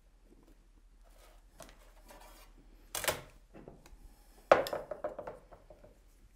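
Metal palette knife scraping, then knocking against kitchenware, with a sharp clack about four and a half seconds in followed by a few lighter clicks.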